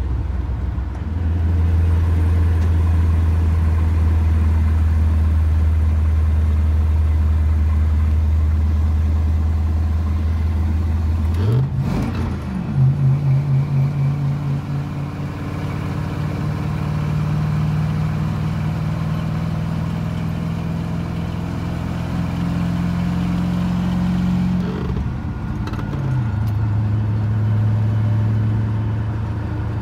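Squarebody Chevy K30 pickup's engine, heard from inside the cab while hauling a heavy load of wood. It drones steadily, then jumps up in pitch a little over a third of the way in, with a short clatter. It holds the higher revs and drops back down near the end.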